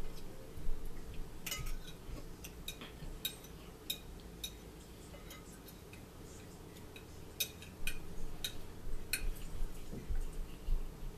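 Forks tapping and clinking on dinner plates as two people eat: a scatter of sharp, irregular clicks, several in quick succession about one to four seconds in and again about seven to nine seconds in.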